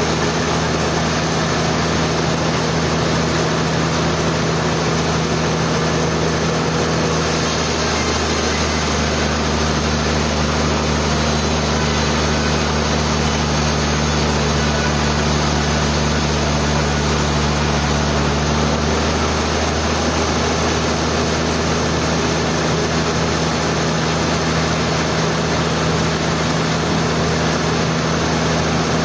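Sawmill running steadily: a constant machine drone with an even rushing noise over it, unchanging throughout.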